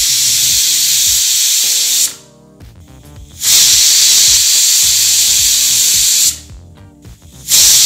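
Aluminium stovetop pressure cooker whistling: the weighted valve lets off steam in loud hissing blasts, one ending about two seconds in, a second lasting about three seconds, and a third starting near the end. The whistles show the cooker is at full pressure and are counted toward the three needed to cook the dal and greens.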